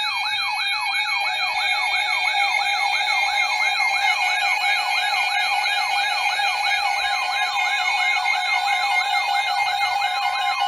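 Electronic emergency alert siren tone from a broadcast alert: a fast yelp that sweeps up and down about three times a second over a steady tone. Near the end the sweep stops and the steady tone carries on.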